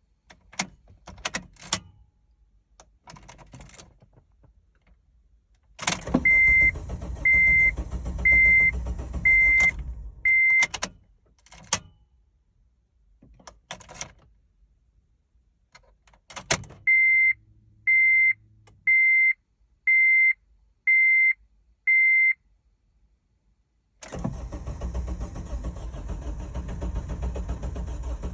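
2008 Honda Civic EX-L's 1.8-litre four-cylinder cranking on the starter without firing, a crank-no-start. It cranks for about four seconds, stops, then cranks again near the end. A dashboard warning chime beeps about once a second during the first crank and again between the cranks, and a few clicks come near the start.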